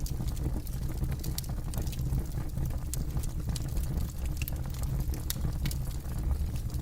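Campfire burning, with irregular sharp crackles and pops from the burning wood, several a second, over a steady low rumble.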